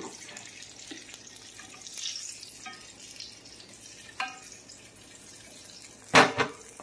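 Apple hand pies sizzling in hot frying oil, a steady hiss, with two light ringing clinks partway through and a louder double knock near the end.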